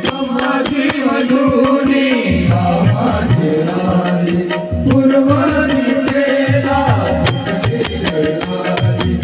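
Instrumental interlude of a Marathi devotional song: a melody over a steady rhythm of percussion and rattling jingles, with a bass line coming in about two seconds in.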